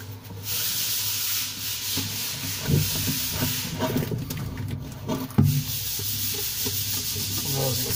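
Plastic sink-trap drain pipe being pushed and worked by hand into the wall drain outlet: steady rubbing and scraping of plastic against the seal, with a few light knocks.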